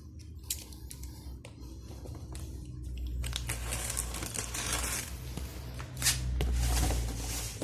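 A cardboard box being opened: a few light clicks, then two stretches of tearing and crinkling as packing tape and flaps are pulled apart.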